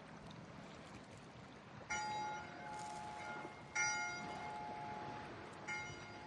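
A bell struck three times, about two seconds apart, each stroke ringing on with several clear tones and fading slowly, over steady wind noise on the microphone.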